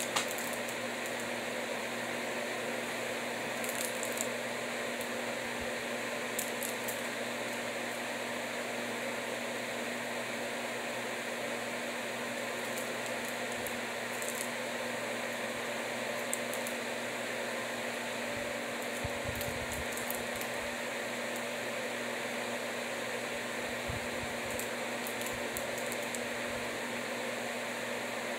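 Steady room noise: an even hiss with a low hum, and a few faint light clicks.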